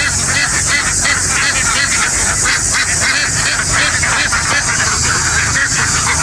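A huge flock of domestic ducks quacking all at once in a dense, continuous din, with a low steady hum underneath.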